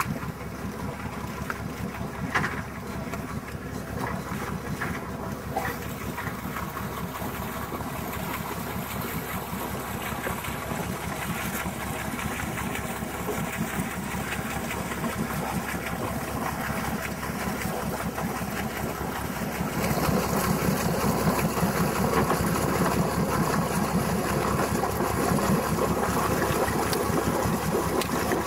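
Boat engine idling steadily at the dock, a low even rumble that grows louder about two-thirds of the way through.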